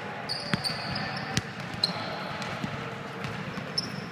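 Basketball shoes squeaking in short high chirps on a gym floor, with a few sharp thuds of the ball bouncing.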